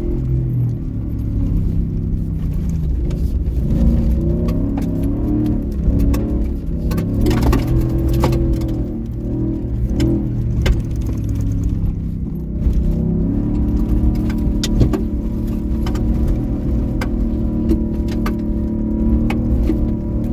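Ford F-150's 5.0-litre Coyote V8 heard from inside the cab while the truck is driven hard on dirt, its pitch rising and falling in steps with throttle and gear changes. Frequent sharp clicks and rattles sound over it.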